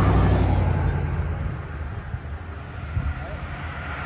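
An SUV driving past on the road: tyre and engine noise loudest at the start, fading away over about two seconds. A second car is heard coming along near the end.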